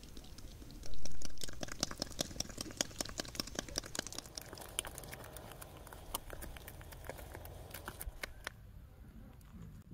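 Quick, irregular clicks and light clinks, densest in the middle, with one loud, noisy knock about a second in.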